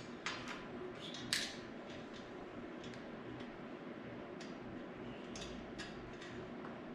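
Light, irregular metallic clicks and taps from hardware and hand tools being handled while a nylon-insert lock nut is tightened onto a bolt of a pitch-back frame. The clicks come thickest in the first second and a half, then turn sparse.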